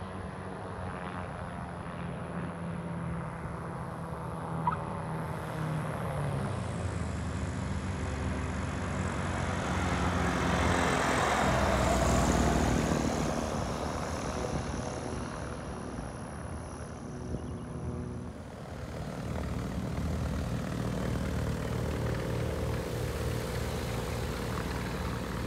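Aventura seaplane's Viking 130 engine and pusher propeller running as the aircraft comes in over the runway and rolls past. The engine note drops about six seconds in, swells to its loudest as the plane passes near the middle and fades, then a steady running engine is heard close up in the last few seconds.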